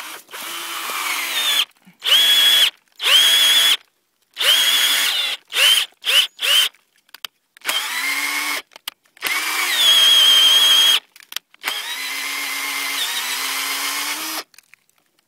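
Power drill boring a tap hole into a maple trunk. The motor whine starts and stops in about ten bursts, some short, with the two longest near the end.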